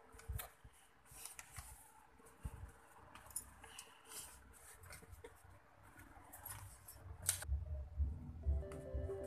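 Faint handling noises close to the microphone: scattered clicks and short scraping rustles. Electronic music fades in near the end.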